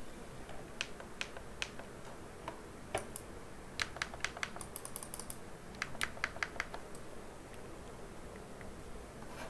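Computer keyboard keys being pressed: a few single key clicks in the first two seconds, then two quick runs of several keystrokes around four and six seconds in, over faint steady hiss.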